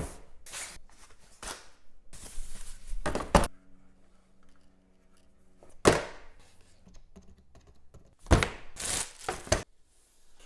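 Hands handling mechanical keyboard parts during assembly: a series of sharp clicks and knocks, some close together, with rustling between them.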